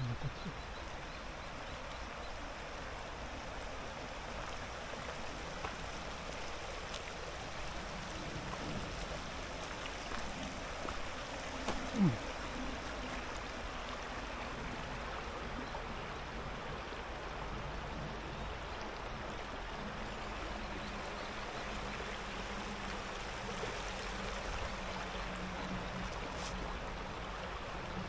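Shallow river running over a rocky bed, a steady rushing of water. A short sound that falls in pitch stands out about twelve seconds in.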